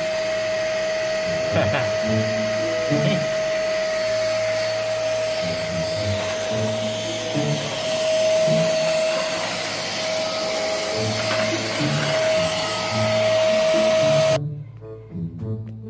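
Vacuum cleaner running with a steady high whine, cutting off suddenly about fourteen seconds in. Background music with a bass line plays underneath throughout.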